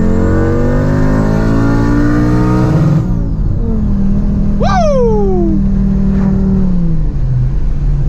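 Audi UrS4's turbocharged 2.2-litre five-cylinder engine with a GT35R turbo, heard from inside the cabin, accelerating with its pitch climbing. About three seconds in it lifts off with a falling whistle, then runs steadily at lower revs. A short swooping whistle sounds about halfway through.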